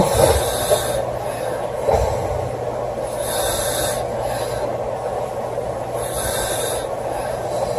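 A woman snoring in her sleep, a raspy, hissing breath about every three seconds. A loud low jolt comes right at the start.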